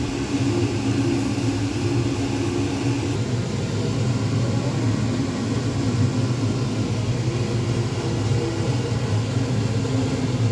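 A steady low rumbling hum with a few held low tones, like a motor or burner running; some of the higher hiss drops away about three seconds in.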